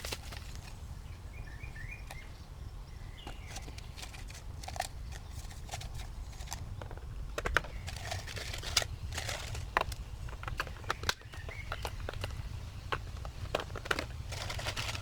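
Outdoor background: a steady low rumble with scattered sharp clicks and faint bird chirps.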